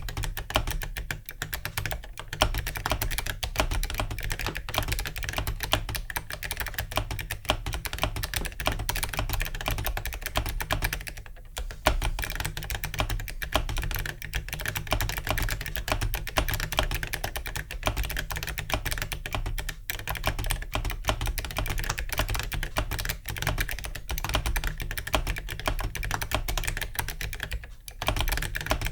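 Continuous fast typing on a mechanical keyboard with ZealPC Clickiez switches and Awekeys metal keycaps: dense, rapid keystroke clicks, with short pauses about eleven seconds in and near the end.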